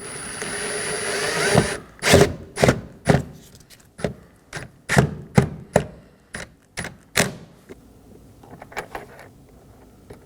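Power screwdriver running for about two seconds, driving a Phillips screw into a plastic door trim panel, with a steady whine that rises slightly. It is followed by a run of sharp, irregular clicks and knocks, which fade off near the end.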